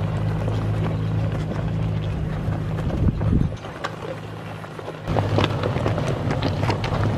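Toyota Tacoma pickup crawling slowly over a loose-rock trail: the engine runs low and steady while stones crunch and click under the tyres. The engine sound drops away for a moment about halfway through, then comes back.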